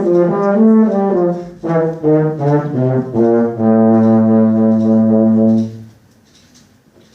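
Euphonium playing a quick run of notes, then a long held low note that ends about six seconds in, followed by a pause.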